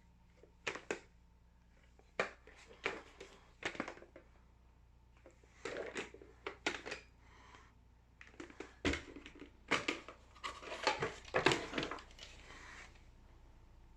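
Irregular rustling and crinkling noises, a dozen or so short bursts, over a steady low electrical hum.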